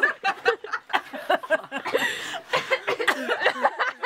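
Several people chuckling and laughing, with bits of talk mixed in.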